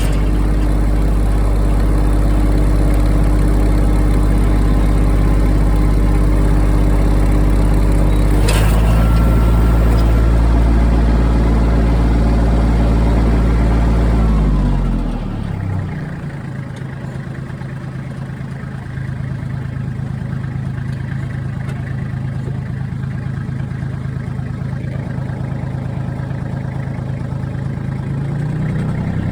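Tractor engine running with the rotary tiller attached, steady and loud, with a sudden shift in its note about eight seconds in. About halfway it slows and drops in pitch, then runs on more quietly at a lower speed. An abnormal noise from near the rotary's drive shaft is under question here, which the owner suspects may be a lack of oil or a bad bearing.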